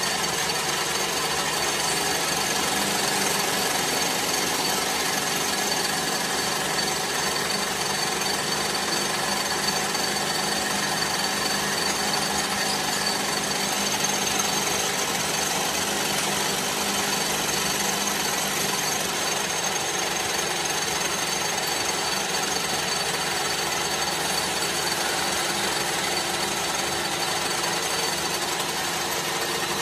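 Metal lathe running steadily while machining a cast-iron truck brake cylinder clamped on its carriage: a continuous mechanical machining noise carrying several steady tones.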